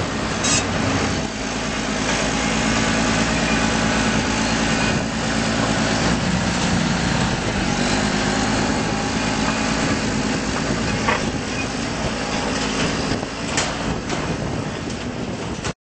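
Deutz turbo diesel engine of an Extec mobile tracked jaw crusher running steadily, its note shifting a little a couple of times, with a few short clanks. The sound cuts off abruptly near the end.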